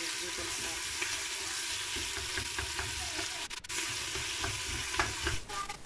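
Sliced onion, potato and chicken sizzling steadily in hot oil in a stainless steel pot as they are sautéed, with a few light clicks near the end.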